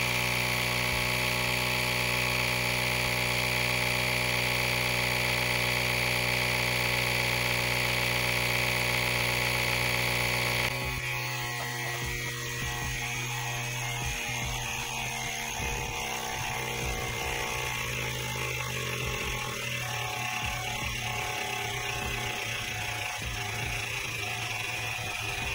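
Cordless tyre inflator's small electric compressor running steadily, an even motor buzz, as it pumps a car tyre up toward 37.5 psi. About ten seconds in the sound changes abruptly to a lower, rougher, less even running noise.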